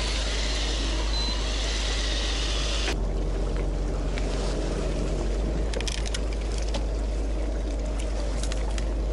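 Steady low hum of an idling fishing-boat engine with water sloshing at the hull. A bright rushing hiss covers the first three seconds and cuts off suddenly, and a few light clicks come in the second half.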